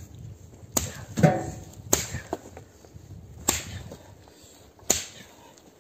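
Sharp blows on wood as pine branches are chopped and broken up for firewood: four separate strikes, about a second to a second and a half apart.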